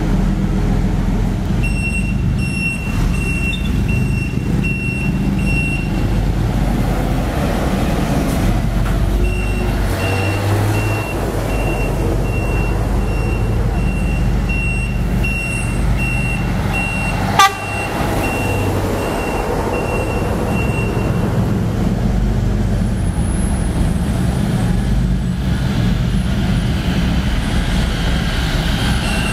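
Heavy truck engines rumbling steadily as a convoy of military vehicles passes. An electronic warning beeper sounds about twice a second for several seconds at a time, and a single sharp crack comes about 17 seconds in.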